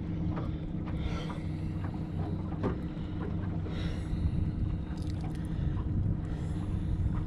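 Boat motor humming steadily as the boat turns in calibration circles, with wind rushing over the microphone.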